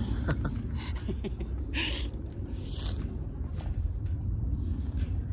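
Steady low rumble of outdoor background noise, with two short hissing sounds about two and three seconds in and a few faint clicks.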